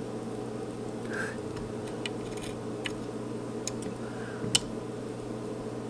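Soldering iron working on capacitor pins of a TV power board: a few faint ticks and small crackles over a steady low hum, with one sharper click about four and a half seconds in.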